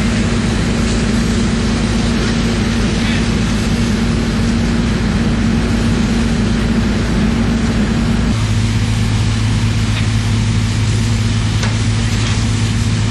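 Fire engine's motor and pump running steadily under load, with a constant hiss of hose water; the low hum shifts about eight seconds in.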